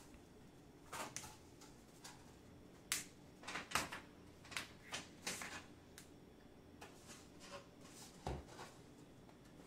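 Scattered plastic clicks and knocks as the replacement screen of a Dell Inspiron 13 7359 is pressed by hand and clipped onto the laptop's frame, the sharpest about three seconds in and just before four seconds.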